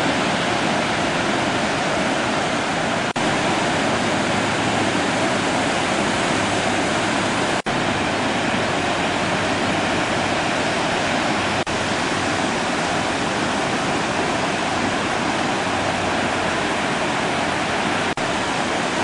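Ocean surf and wind making a steady rush. It breaks off for an instant four times.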